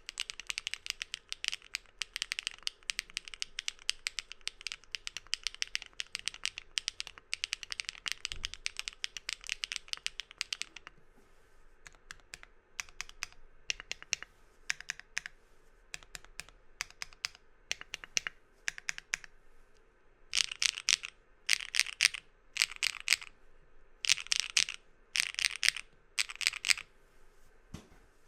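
Mechanical keyboard with lubed Keygeek Muse linear switches (UPE stem, POM top and nylon bottom housings) in a gasket-mounted Tess65 with polypropylene plate, being typed on. Fast continuous typing runs for about eleven seconds, slows to scattered single keystrokes, then comes in several short, louder flurries of rapid key presses near the end.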